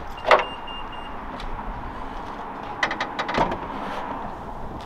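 Car handling noises, such as a door or latch: a sharp click near the start, followed by a short, faint, broken high beep, then a flurry of clicks and knocks about three seconds in.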